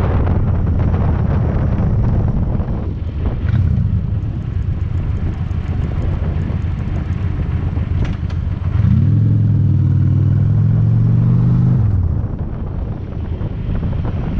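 Honda Shadow's V-twin engine running while the motorcycle is ridden, with wind noise over it. About nine seconds in the engine note grows louder and climbs slightly for three seconds as it pulls, then eases off.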